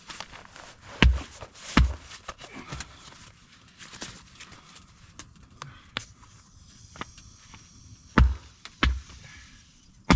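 Heavy dull thumps in two pairs, about a second in and again near the end, with light clicks and rustling between them.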